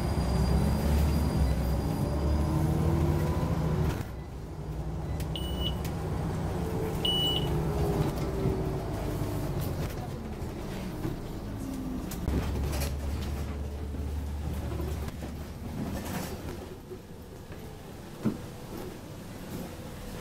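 Scania OmniCity N94UD double-decker bus heard from inside while under way: diesel engine rumble and drivetrain whine rising and falling as the bus speeds up and slows. Two short high beeps come about five and seven seconds in, and there is a single knock near the end.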